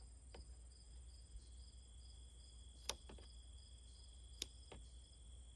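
Faint scissor snips cutting beet microgreens, a few quiet clicks with two sharper ones about three and four and a half seconds in, over a steady, faintly pulsing high chirr of insects.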